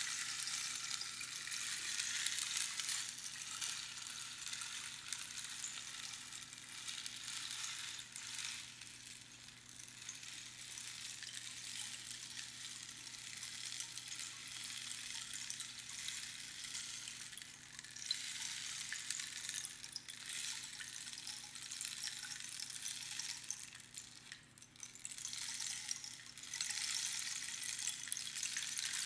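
Rainstick: pebbles trickling down over the pins inside the tube in a dense, high, rain-like hiss. The hiss swells and fades in long waves as the stick is turned, with a short lull near the end followed by a fresh cascade.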